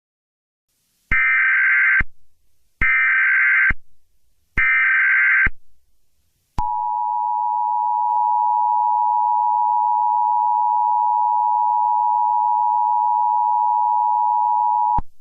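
Emergency Alert System tones: three short bursts of SAME header data, each about a second long, followed by the two-tone attention signal. The attention signal is held steadily for about eight seconds and then cuts off, announcing an alert message.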